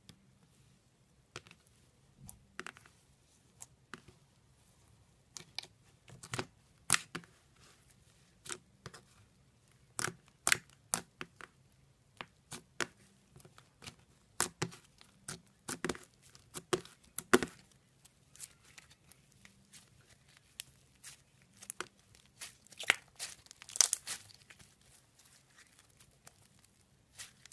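Slime mixed with small beads being pressed, folded and kneaded by fingers, giving off irregular crackling clicks and pops. They are sparse for the first few seconds and come thicker after that.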